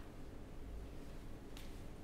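Quiet room tone, with a faint brief hiss about one and a half seconds in.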